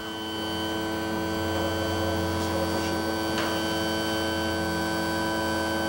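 Electric pump of the Jiotto Caspita's oil-hydraulic ride-height system running with a steady hum as it adjusts the car's height.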